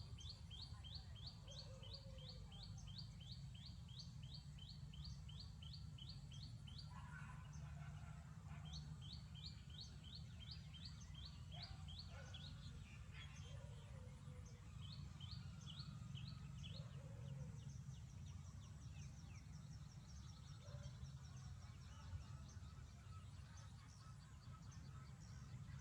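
Baby birds chirping high and quick, about three chirps a second, in several runs with short pauses, over a steady low rumble.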